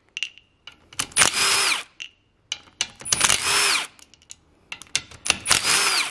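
Cordless drill with a socket spinning 10 mm bolts out of a manual gearbox's shift cover plate in three short runs, each winding down as it stops. Light metallic clicks and taps come between the runs.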